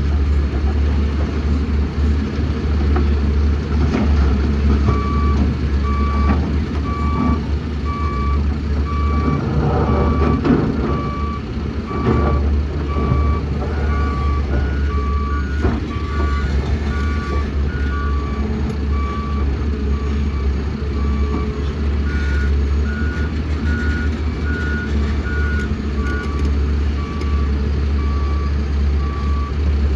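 Reversing alarms on heavy construction machinery beeping at a steady even pace over the steady low rumble of big diesel engines; the beeping starts a few seconds in, and a second, higher-pitched alarm joins twice for a few seconds.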